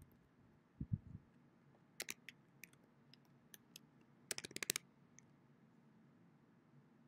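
Faint computer-keyboard typing: a few scattered keystrokes, then a quick run of keys about four and a half seconds in, as text is typed and backspaced. A couple of low thumps about a second in.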